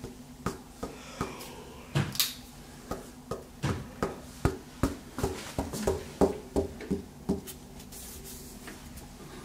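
Knuckles rapping on a painted interior wall: a series of sharp knocks in irregular groups that thin out near the end. It is a knock test to find solid, load-bearing sections, where the wall sounds full, like hitting rock, against hollow ones that sound empty.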